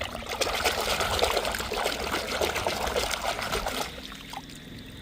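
Water pouring and splashing while toy cars are washed, stopping just before four seconds in.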